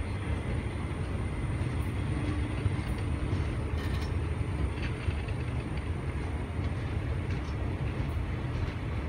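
Indian Railways ICF passenger coaches rolling past close by: a steady low rumble of wheels on rail, with a few faint clicks.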